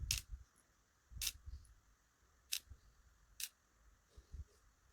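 Four small sharp clicks about a second apart, with a few faint low bumps of handling: key pins being taken out of a disassembled ASSA 600 pin-tumbler lock.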